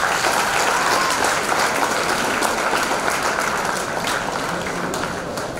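Audience applauding, a dense spread of hand claps that slowly fades toward the end.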